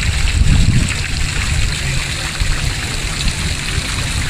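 Fountain of Neptune's water jets spraying and splashing into the stone basins: a steady rush of falling water with a low rumble underneath.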